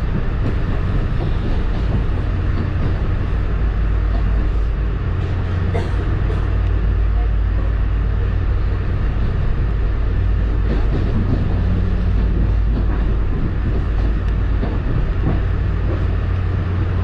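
MBTA commuter rail coach heard from inside while the train runs along the track: a steady low rumble of wheels on rails, with a few scattered clicks and knocks.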